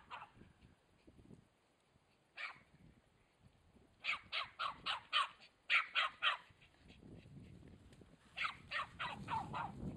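Border terrier barking in quick yapping runs, about five barks a second: a single bark, then three runs of five to seven barks each.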